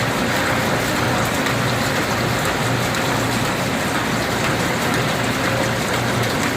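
YKC8180B-1 CNC gear shaping machine running, with a steady rush of splashing liquid that is typical of flood coolant on the cut, over a low steady hum.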